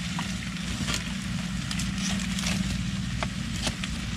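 Scattered crackles and pops over a steady low hum, from cooking over an open flame.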